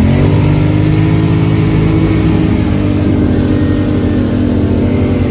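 Polaris ATV engine revved up, its pitch climbing briefly at the start, then held steady at high revs as the machine churns through deep mud.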